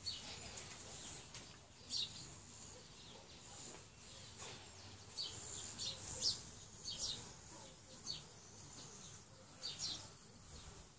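Birds chirping: short, high, falling chirps every second or so, some in quick pairs, over a faint steady high hiss.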